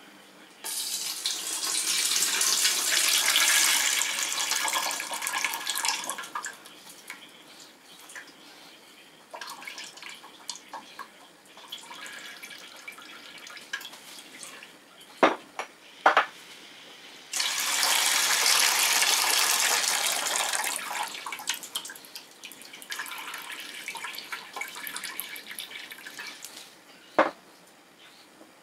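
Fermented cucumber brine pouring out of upside-down glass jars through perforated straining lids into an enamel pot: two strong gushes, with quieter trickling and dripping between and after them. A few sharp knocks come in between the gushes.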